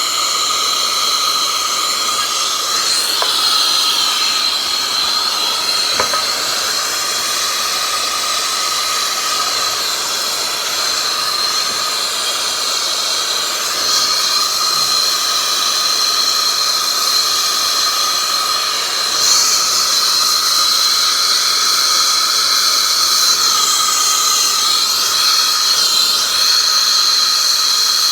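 Turbo torch flame burning steadily with a loud hiss and a high whistle, heating large copper pipe fittings for soldering.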